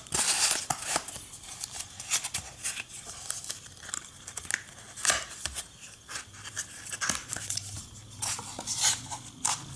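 Unboxing packaging being handled: irregular rustling and crinkling with many small clicks and taps as the box contents are moved aside.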